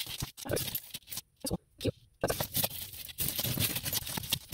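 Hands rummaging through a tangled pile of costume jewelry, metal chains and beads rustling and lightly clinking in irregular scrapes and clicks. It goes nearly quiet for about a second partway through, then the rustling and clinking picks up again, denser.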